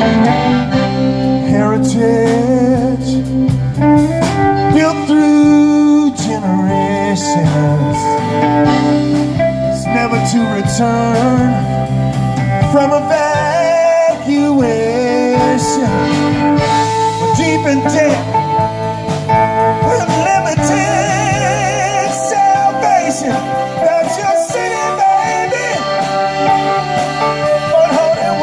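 Live blues band playing an instrumental stretch of a song, with electric guitar, accordion, bass and a drum kit.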